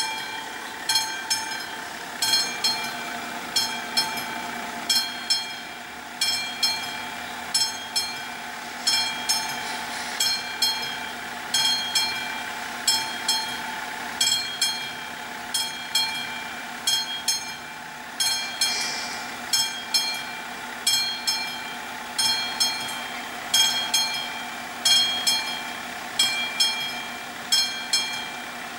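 Level crossing warning bell striking about once a second, each stroke ringing on in a bright metallic tone, sounding while the barriers are down to warn that a train is approaching.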